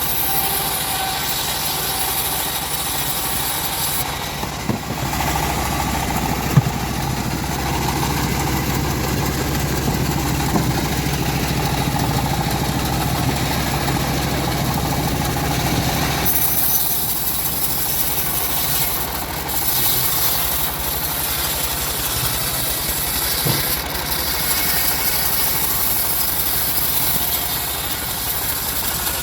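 Engine-driven homemade band sawmill running steadily. Its sound grows fuller about five seconds in and turns thinner and hissier a little past halfway, with a single short knock early on.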